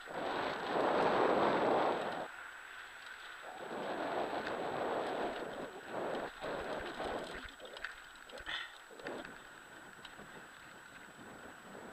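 Wind buffeting the camera microphone while a mountain bike rolls down a dry dirt singletrack, its tyres and frame rattling over bumps. The rushing noise swells twice in the first half, and a short high squeak comes about two-thirds through.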